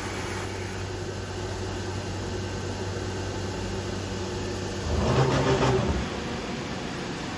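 Omnitech Chief 5x12 flat-table CNC router running with a steady low hum. About five seconds in, a louder, rougher burst lasts about a second before the hum settles back.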